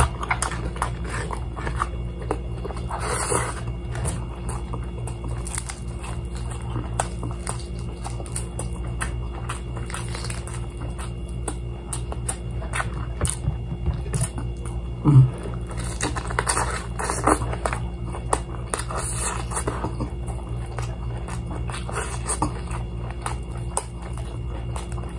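Close-up eating sounds: crispy fried chicken being pulled apart by hand and chewed, with scattered small crunches and clicks over a steady low hum.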